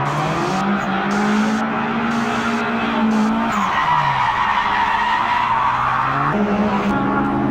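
Added car sound effects: an engine running with tyres screeching. A little way past the middle the engine pitch falls away while the screech grows louder, and near the end the engine pitch jumps back up.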